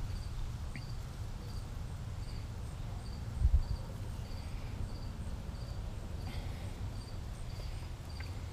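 A chirping insect, a short high chirp repeated evenly about twice a second, over a steady low rumble with a single thump about three and a half seconds in.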